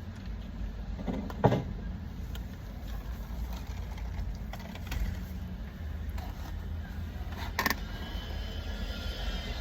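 Steady low rumble of an idling car engine, with two sharp clicks: a loud one about a second and a half in and another about two seconds before the end.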